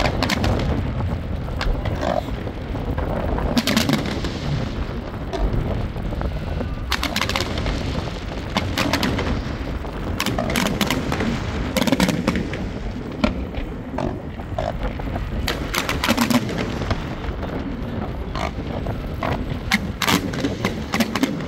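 Fireworks display: aerial shells bursting with repeated sharp bangs and crackles, coming in clusters of rapid reports throughout.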